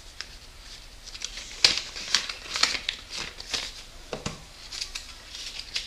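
Paper envelope being torn open by hand and its paper contents rustled and pulled out: irregular sharp crinkles and rips.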